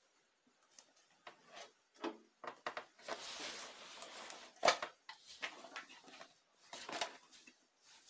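Light handling sounds of a child's hands working play-doh among toys: scattered rustles and small clicks, with a sharper knock about four and a half seconds in.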